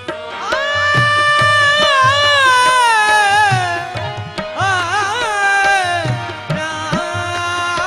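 Qawwali-style naat sung by male voices to harmonium and tabla: about half a second in, the voice takes up a long held note that slides slowly downward, then breaks into a quick ornamented run, over the steady harmonium drone and tabla strokes.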